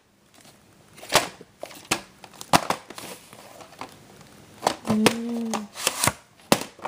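A VHS tape being handled: the cardboard sleeve rustling and the plastic cassette clicking and knocking as it is turned over and slid out, in a series of sharp clicks and scuffs. A short low hum sounds about five seconds in.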